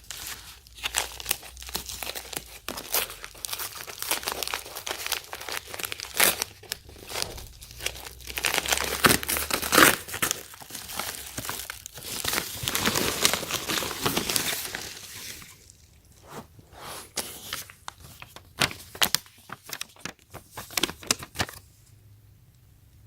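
A power strip's retail packaging being opened by hand, crinkling and tearing. The handling is busiest around the middle, thins to a few scattered clicks, and falls quiet near the end.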